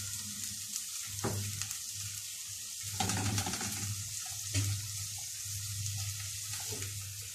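Sliced leeks sizzling as they fry in melted butter in a pot, stirred with a spatula that knocks and scrapes against the pan a few times.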